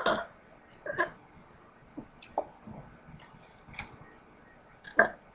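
A person's short burps, about five in a row roughly a second apart, the first one right at the start among the loudest.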